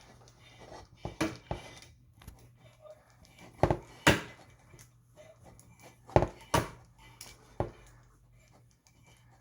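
Sharp clinks and knocks, several in pairs about half a second apart, from a faucet supply hose and its nut being handled and hand-threaded onto the faucet.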